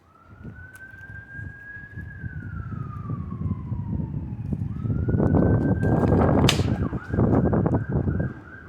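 Emergency vehicle siren wailing: a slow rise and fall in pitch, then a second rise that switches to a rapid warbling yelp near the end. Under it, wind rumbles on the microphone, growing louder through the middle, and there is one sharp click about six and a half seconds in.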